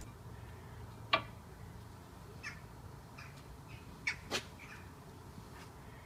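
A few sharp metal clicks from new brake pads being fitted into the front brake caliper carrier of a Volkswagen Transporter, with fainter short squeaks and scrapes between them.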